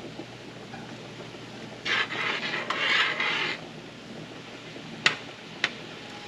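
Kitchen utensil scraping against cookware for a little under two seconds, then two sharp clicks.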